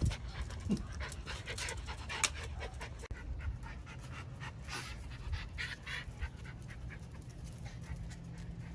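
Miniature Schnauzer panting in quick breaths close to the microphone, fainter after about three seconds.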